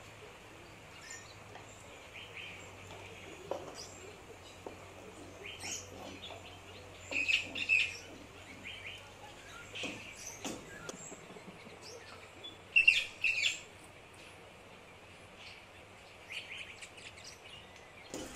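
A small bird chirping in short, scattered calls, loudest in two clusters about seven and thirteen seconds in, over a faint low steady hum.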